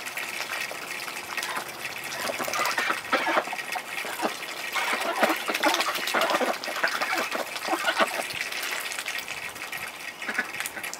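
Domestic ducks dabbling their bills in a muddy puddle and a water dish: a busy, irregular wet splashing and sputtering, with water running.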